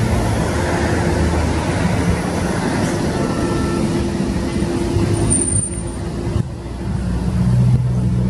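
A boat's engine droning steadily, mixed with wind and rushing water noise. The level dips briefly a little after six seconds.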